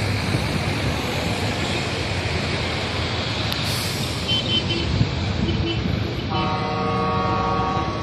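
Traffic and road noise heard from a moving vehicle, steady throughout. A vehicle horn sounds one long, steady note for nearly two seconds near the end.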